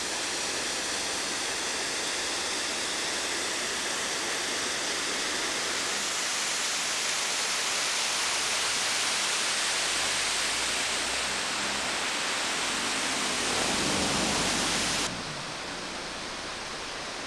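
Steady, dense rushing noise, even and without rhythm or pitch, that drops off abruptly about fifteen seconds in.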